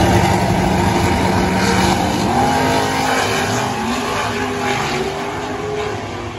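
Two drag-racing cars launching side by side down a drag strip, their engines at full throttle, the engine note climbing, dropping at a shift about two seconds in, then climbing again.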